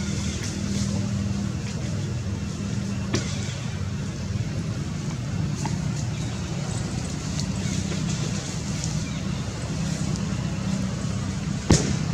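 Steady low motor hum, like an engine running, with a click about three seconds in and a sharp knock near the end.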